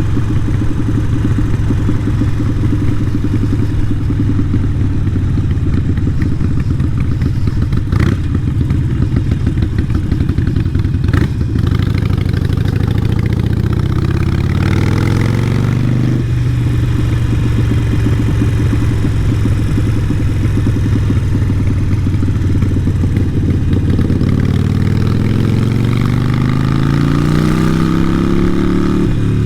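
Harley-Davidson Sportster 883 Iron's air-cooled V-twin running through a Vance & Hines exhaust while riding, its note holding steady, then climbing as the bike accelerates about halfway through and again near the end. A couple of short sharp knocks come a little over a third of the way in.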